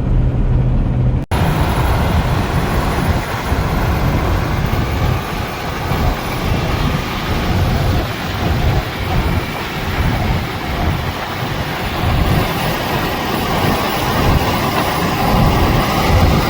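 Steady road and wind noise of a truck driving at highway speed, after a brief dropout about a second in.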